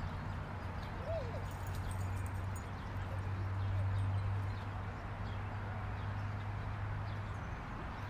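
Dog park ambience: a steady low hum beneath faint, distant dogs and people. A short rising-and-falling chirp comes about a second in, and the hum swells a little midway.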